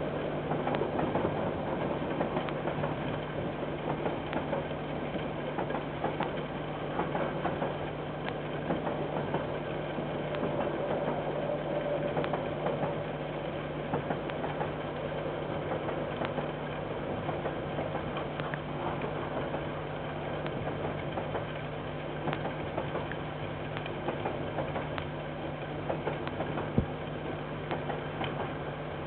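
Diesel train locomotive engine running steadily, a constant low hum with faint irregular ticking and one sharper click near the end.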